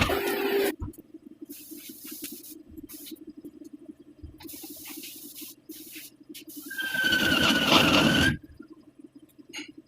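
CNC lathe machining. A loud cutting pass stops within the first second, leaving the machine's pulsing hum with scattered short scrapes. A second loud cutting pass from about seven seconds in carries a steady high squeal.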